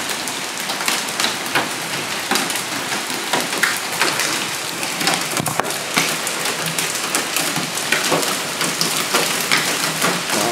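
Heavy rain mixed with hail falling in a thunderstorm: a steady hiss of rain with irregular sharp taps and clicks of hailstones striking hard surfaces several times a second.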